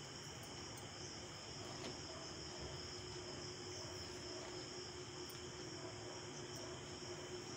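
Faint steady background hiss with a continuous high-pitched whine, and a few light clicks of a knife cutting soft steamed taro-leaf rolls on a plastic plate.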